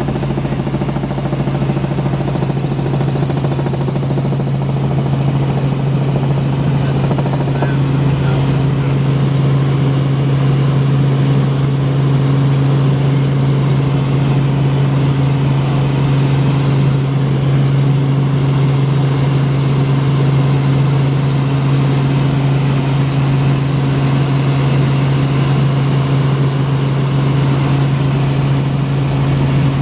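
Light helicopter's engine and rotors running steadily in flight, heard from inside the cabin as a loud, even drone with a strong low hum.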